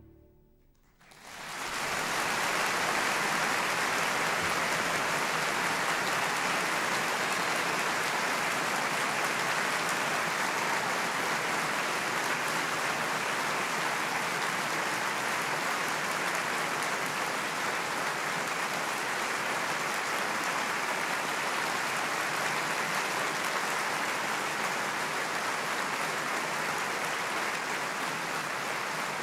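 The orchestra's last note dies away, and about a second in an audience breaks into applause: dense, steady clapping that holds at an even level.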